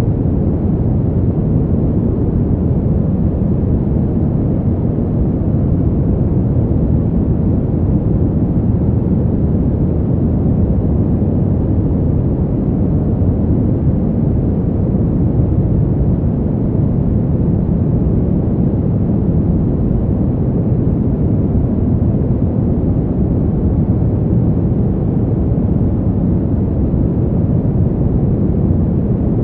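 Steady brown noise: a deep, even rumbling hiss with most of its energy in the low end and little above a few hundred hertz.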